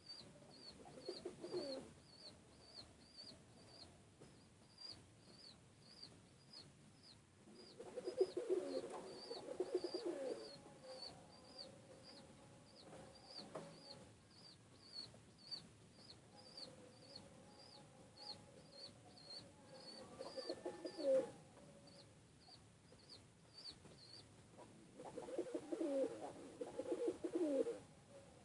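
Domestic pigeons cooing in several short bouts. Under them runs a steady series of high peeps, a little under twice a second, that stops a few seconds before the end.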